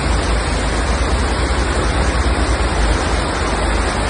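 Floodwater rushing in a steady, loud torrent, with a strong low rumble underneath.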